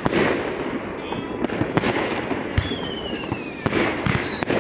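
New Year's fireworks going off: a rapid string of bangs and pops, with a high whistle that slowly falls in pitch for nearly two seconds from about halfway in.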